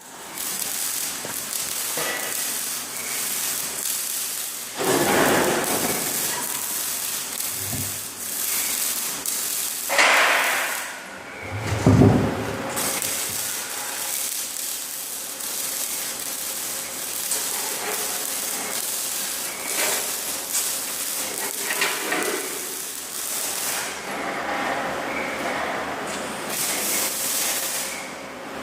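TIG welding arc hissing steadily, cutting out briefly twice, with a few louder thumps along the way.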